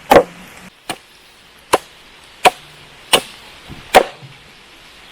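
A blade chopping into wood with six sharp, evenly paced blows, about one every three-quarters of a second.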